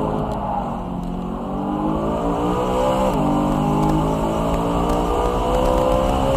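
BMW E92 M3's V8 engine pulling hard under acceleration, its pitch climbing through a gear. About three seconds in the pitch drops sharply at an upshift, then it climbs again through the next gear.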